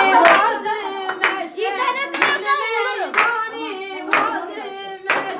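People singing a song while clapping their hands in time, with one sharp clap about every second under the voices.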